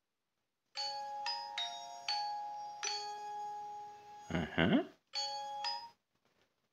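Banaus B4 smartwatch playing a notification tone through its small speaker: a short chime melody of several bell-like notes, ending in a brief rising swoop. The tone starts over about five seconds in and is cut off after under a second.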